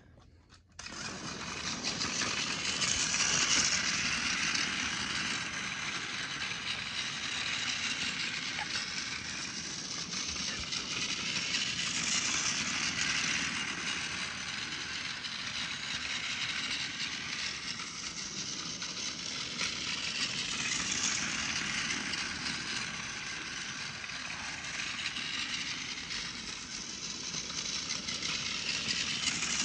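Plarail Emily battery-powered toy train running on its plastic track: a steady mechanical whirr of the small electric motor and gears, starting about a second in and swelling and fading about every nine seconds.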